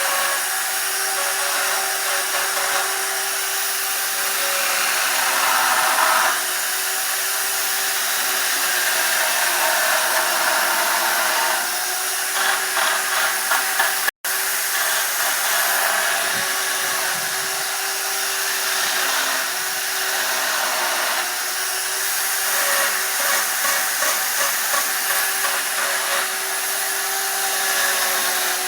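Chainsaw running and cutting into wood, a steady motor tone that wavers slightly in pitch as the chain takes load. The sound drops out for an instant about halfway through.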